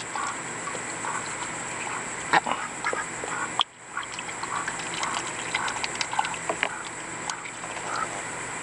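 Domestic ducks dabbling and splashing with their bills in a shallow pool of water as they hunt live menhaden, with many short wet clicks and soft, repeated low quacks. A louder splash or call comes about two seconds in.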